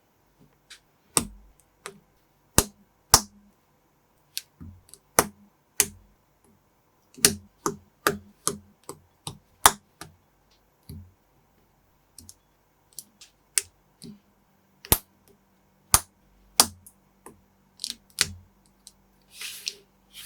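Plastic Lego-style building bricks clicking and snapping together in irregular sharp clicks, one or two a second, with a short swish near the end.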